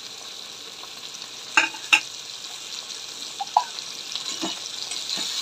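Onions, chana dal and prawns sizzling steadily in hot oil in a kadai. A steel spatula clinks sharply twice about a second and a half in, then knocks lightly a few more times as ginger paste is scraped into the pan.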